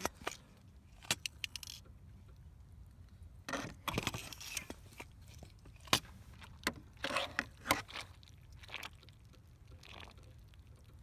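Handling noises from a cooling-system pressure tester and its hose fitting: scattered clicks and scrapes, with short rustling bursts about four and seven seconds in.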